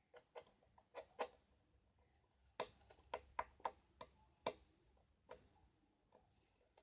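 Sticky fluffy slime being squeezed and pulled in the hands, giving a dozen or so small, irregular sticky clicks and pops, bunched together in the middle with the loudest about four and a half seconds in.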